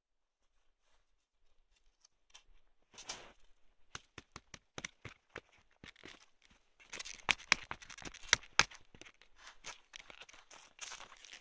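Crisp snow crunching and crackling under a ski boot and touring skis as the boot shifts. The dense, irregular crackles start about three seconds in and are loudest in the middle.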